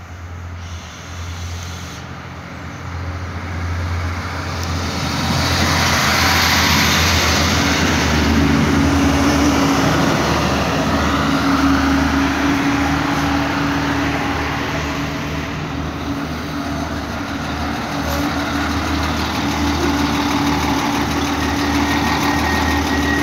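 Irish Rail 29000 Class diesel multiple unit arriving at a platform: the noise of its engines and wheels grows louder as it draws in, then holds steady with a low engine hum as it stands. A thin steady high tone begins near the end.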